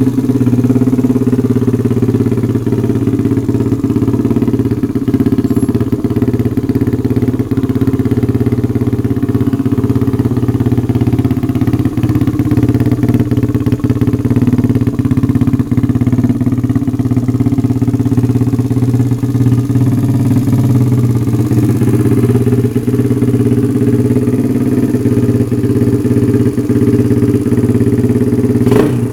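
Mini bike's small air-cooled horizontal-cylinder engine idling steadily through a chrome aftermarket Moto GP-style exhaust, with an even, unchanging note.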